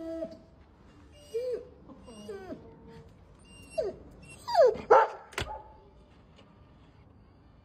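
Dog whining and whimpering in a run of short, wavering cries, the loudest rising to a high whine about five seconds in: distress at the owner leaving the house. A single sharp click comes just after the loudest cry.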